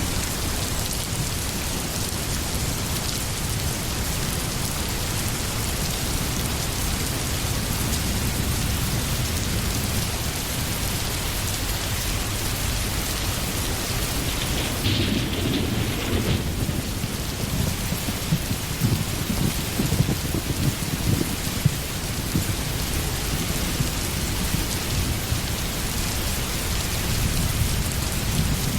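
Steady rain pouring down. From about halfway in, a long low rumble of thunder with crackling peaks joins it.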